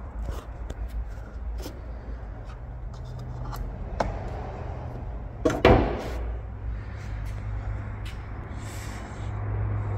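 Car bonnet being lifted and propped open: scattered light clicks and rubbing, with a louder clunk about halfway through, over a steady low hum.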